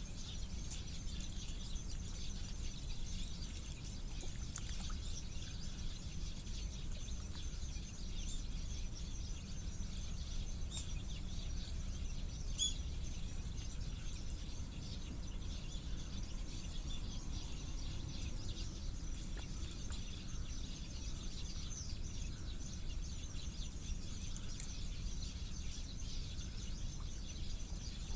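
Outdoor ambience: a steady low rumble under faint, high-pitched bird chirps, with one sharp click about halfway through.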